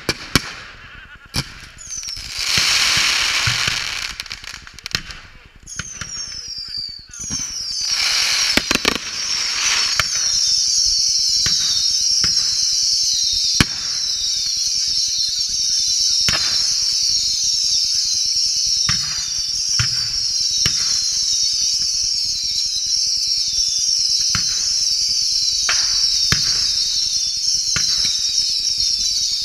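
Ground-fired fireworks going off. A few sharp bangs and a spell of hissing and crackling come first. From about seven seconds in, many whistling fireworks sound together in a dense, continuous whistling, each whistle falling in pitch, with occasional bangs.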